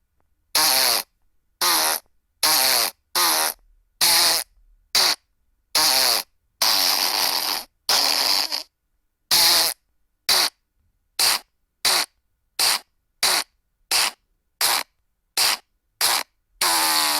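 Fart and burp sound effects from a soundboard app, played one after another: about twenty short wavering, rasping blasts, each a fraction of a second long with silence between. The longest, nearly a second, comes about seven seconds in, and from about eleven seconds on the blasts come short and evenly spaced, roughly every two-thirds of a second.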